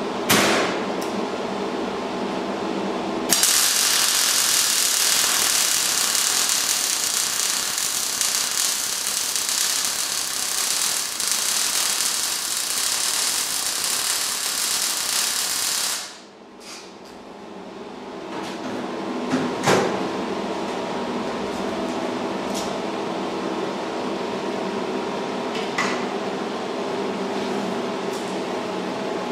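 MIG welder laying a continuous weld bead, running a steel reinforcement bracket onto a steel axle casing: a steady, rapid arc crackle that starts sharply about 3 seconds in and stops abruptly at about 16 seconds. A few brief tack-weld bursts come before and after the main run.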